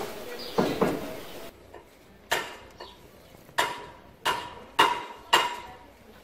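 Five sharp hammer strikes at uneven intervals, several leaving a short metallic ring: a hammer knocking on stone or a chisel, as in a mason's stonework.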